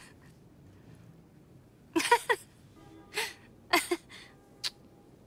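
A woman laughing in a few short, breathy bursts, starting about two seconds in.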